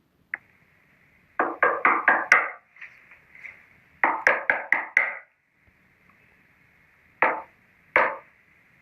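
Knocking on a door: one knock, then two rapid runs of about five knocks each, then two single knocks near the end.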